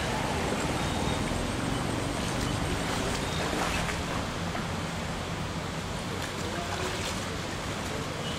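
Steady rushing noise of wind and the flowing floodwater of the swollen Godavari river, with a low rumble.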